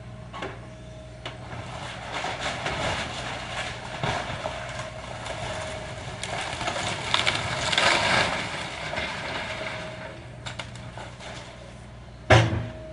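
Heavy demolition machinery running steadily while a house is torn down, with long crunching and breaking of debris in the middle and one sharp, loud crash near the end.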